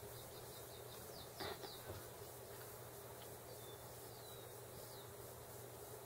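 Birds chirping faintly: several short, high, falling chirps over a steady hiss, the loudest about one and a half seconds in.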